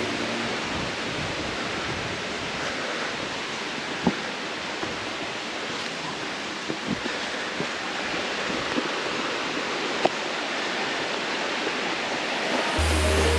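Steady rushing of a forest stream over rocks, with a few sharp clicks of footsteps on the stony trail. Music with a low bass comes in near the end.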